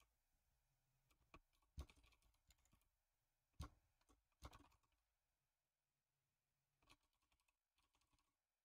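A handful of faint, isolated keystrokes on a computer keyboard, about five taps spread over several seconds in near silence.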